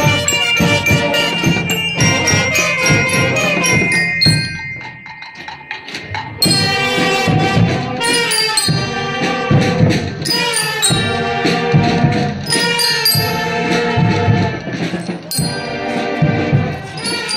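Student marching band playing, with drums keeping a steady beat under sustained melody notes; the music drops quieter for a moment about five seconds in, then the full band comes back in.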